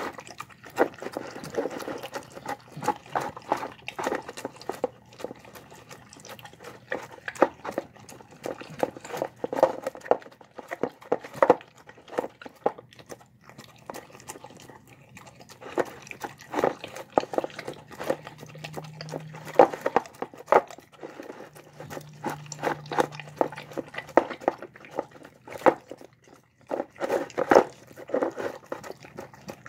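A dog eating boiled rice and egg from a bowl: wet chewing, lip-smacking and licking in uneven bursts of quick clicks.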